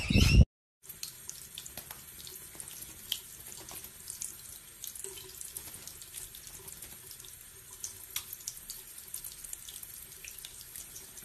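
A loud sound in the first half second cuts off abruptly. Then water runs steadily from a bathroom faucet into a sink and over a budgerigar held in the stream, a hiss sprinkled with small splashes and drips.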